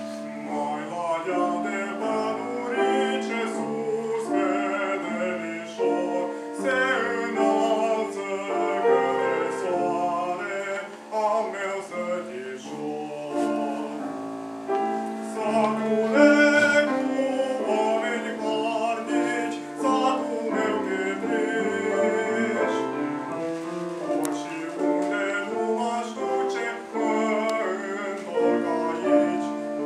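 Solo male voice singing a Romanian romanță in a trained classical style with vibrato, accompanied by piano.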